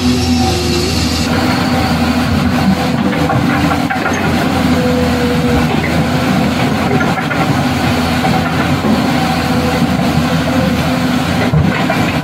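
An engine running steadily, a dense low sound with a faint hum on top and no letting up.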